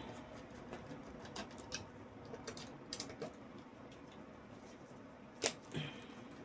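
Light scattered clicks and taps of small PC hardware parts being handled, with a sharper click about five and a half seconds in and a softer one just after.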